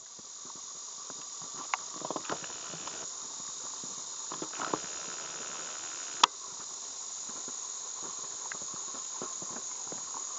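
Steady, high-pitched chorus of summer insects, with a few soft clicks and one sharp click about six seconds in.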